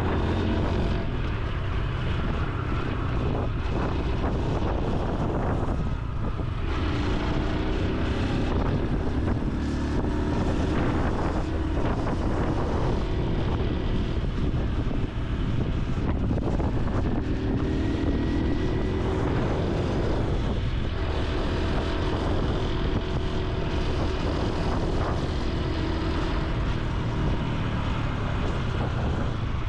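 Honda Super Cub C125's single-cylinder four-stroke engine and exhaust while riding, the engine note rising and falling with speed. Wind rumbles on the microphone.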